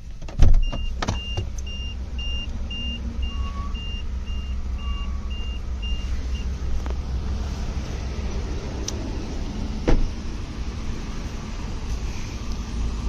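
Car being filled with diesel at a fuel pump: a steady low rumble with two sharp clicks near the start, then quick, evenly spaced electronic beeps for about six seconds, and another click about ten seconds in.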